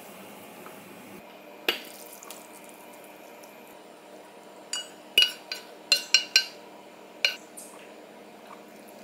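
Soup poured from a saucepan into a ceramic bowl of udon, with a quick run of sharp, ringing clinks of cookware against the bowl. A steady hum runs underneath.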